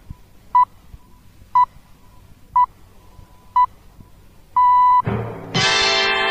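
The BBC Greenwich Time Signal: short beeps of one steady tone a second apart, then a longer final beep marking the hour, here six o'clock. Music starts just after it.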